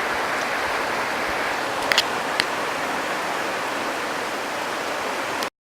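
Heavy rain falling steadily, with a few sharp ticks about two seconds in; it cuts off suddenly near the end.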